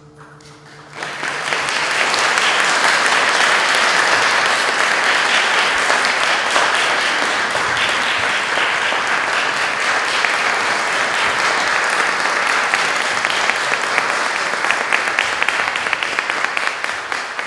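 Audience applauding, breaking out about a second in as the last held notes of the music die away, then tapering off near the end.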